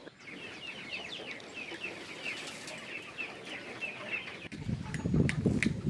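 Chickens calling: a quick, continuous run of short, high peeping calls, giving way near the end to a low rumble with a few sharp clicks.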